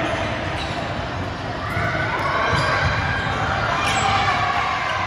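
Indoor volleyball play in a large echoing gym: a few thumps of the ball and players' voices calling, loudest about halfway through.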